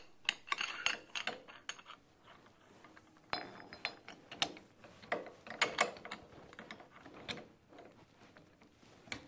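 Irregular metallic clicks, clanks and ratcheting knocks of hand work at a metal lathe, typical of stock being clamped in the chuck. A few of the knocks ring briefly.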